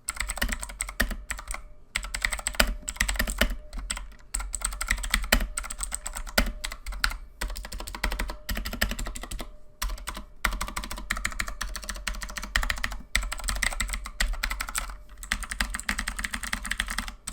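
Fast, continuous typing on a Red Dragon Kumara mechanical keyboard with blue clicky switches: a dense run of sharp key clicks, broken by a few short pauses.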